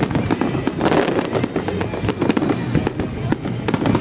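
Aerial fireworks bursting in rapid succession, many overlapping bangs and crackles, with a stronger burst about a second in.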